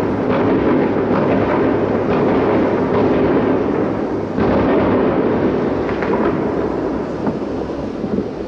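Distant fireworks salute from salute launcher vehicles: a continuous rolling rumble of many overlapping shell bursts with a few faint sharp cracks, easing off slightly near the end.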